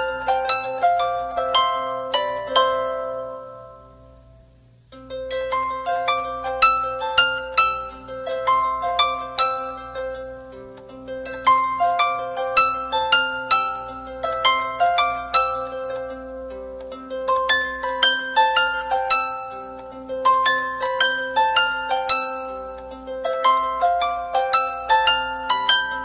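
Background instrumental music of quick runs of plucked-string notes. It fades away about three seconds in and starts again near five seconds.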